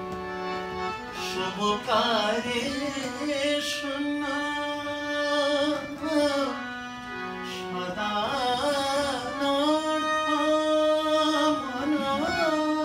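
A man singing a slow Bengali devotional song over a steady drone from his own Bina harmonium. He sings two long held phrases with ornamented turns, with a short breath between them about halfway through.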